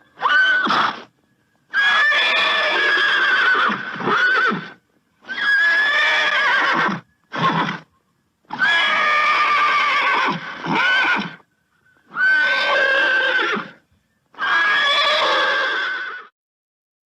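Horse neighing over and over: about seven whinnies of one to three seconds each, with a wavering pitch, separated by short gaps of dead silence.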